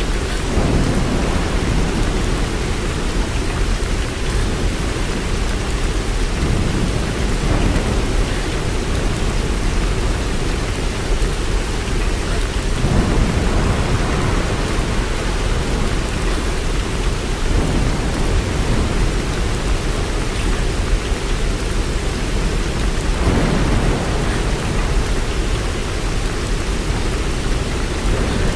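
Steady rain, with a deeper swell in the sound every five or six seconds.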